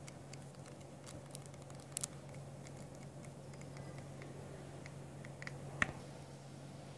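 Pages of a paperback book being riffled with the thumb: a scatter of soft page flicks and clicks over a steady low hum, with one sharper click near the end.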